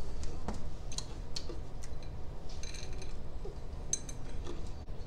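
Dry, crunchy wasabi peas crunching and clicking: a few sharp clicks in the first two seconds, a short denser crackle about two and a half seconds in, and another click near four seconds.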